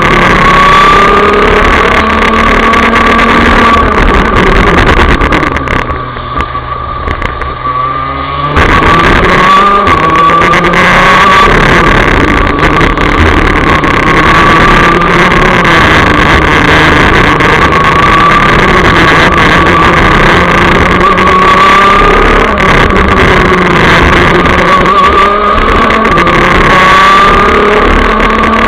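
Onboard sound of a Rotax DD2 125cc two-stroke racing kart engine at racing speed, its revs rising and falling through the corners and straights. For a couple of seconds, about six seconds in, it drops quieter and duller before coming back at full volume.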